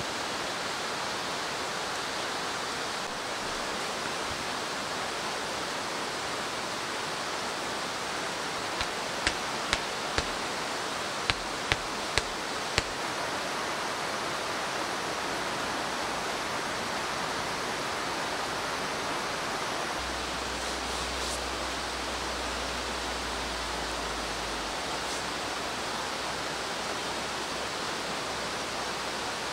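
Steady rush of running water, with a handful of sharp clicks or knocks about ten seconds in.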